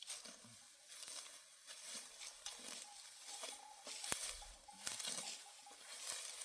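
Dry barley stalks rustling and crackling as they are pulled up by hand, with a sharp click about four seconds in.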